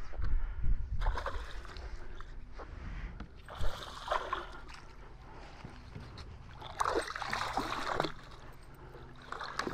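Hooked smallmouth bass thrashing and splashing at the water's surface in several bursts, the heaviest near the end as it is brought to the landing net.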